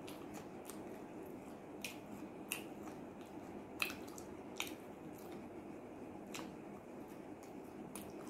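Close-miked eating of thick-cut potato fries dipped in sauce: soft wet chewing with a scattering of sharp mouth clicks, the loudest about four seconds in, over a steady low hum.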